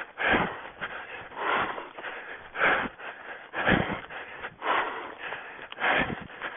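An orienteer's hard breathing while running, a loud breath about once a second, with fainter scuffs and brushing of footsteps through the forest floor between the breaths.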